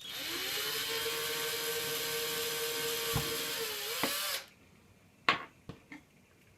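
Electric drill running for about four seconds: it spins up with a rising whine, runs steadily, dips briefly near the end and stops. Two sharp clicks follow.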